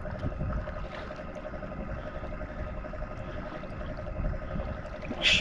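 Electric motor of an Old Town kayak running with a steady whine over water and wind rumble. A brief sharp noise near the end.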